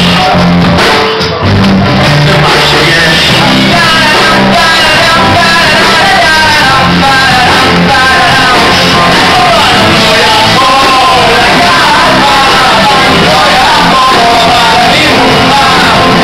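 Live rock band playing loud: a man sings over electric bass, electric guitar and drums, with a brief drop in level a little over a second in.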